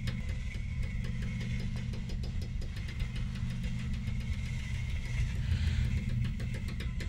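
Steady low mechanical rumble with a fast, even rattle of clicks over it and a faint high whine, like machinery running.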